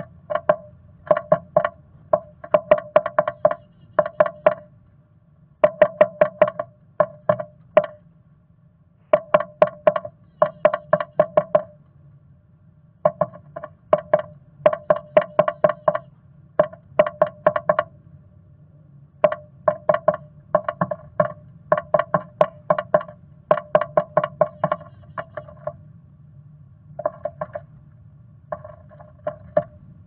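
Black-capped chickadee pecking at the wood inside its nest box: quick runs of hollow wooden taps, several to a run, with short pauses between runs, each tap ringing in the small box.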